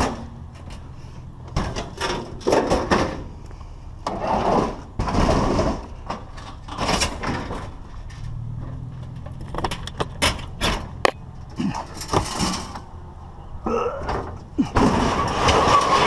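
Irregular knocks, clatters and scrapes of scrap and debris being picked up and moved while a mess is cleaned up, over a low steady hum.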